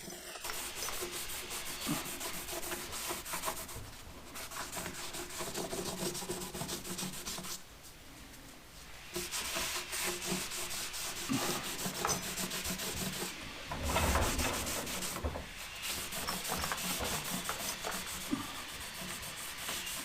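Hand rubbing across a wooden board in repeated strokes, as when sanding or wiping down lumber, with a short pause about eight seconds in.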